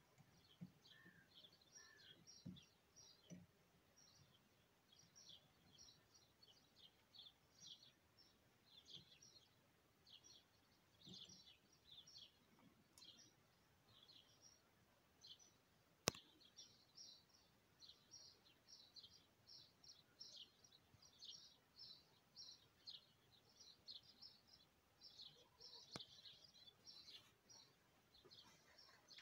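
Faint, continuous chirping of small birds. A few soft knocks come in the first three seconds, and a single sharp click about sixteen seconds in.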